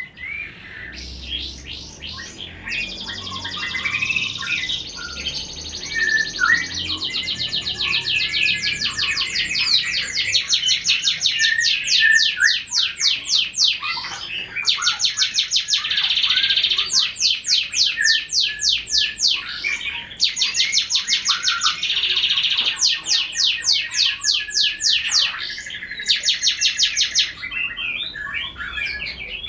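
Canary singing long runs of fast repeated notes, each run broken by a short pause, with another caged bird's short scattered chirps underneath.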